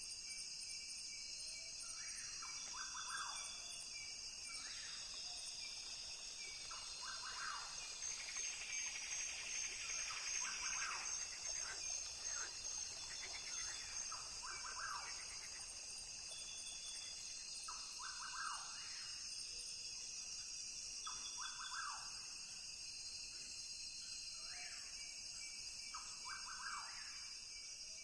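Rainforest ambience: a steady, high-pitched chorus of insects, with short animal calls repeating about every two seconds.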